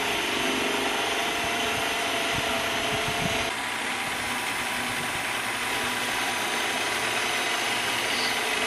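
Central Machinery benchtop mini lathe running under a turning cut, with its motor and gearing making a steady hum and whine as the tool is fed along the spinning workpiece. About three and a half seconds in, the sound drops a little and one tone in the whine stops.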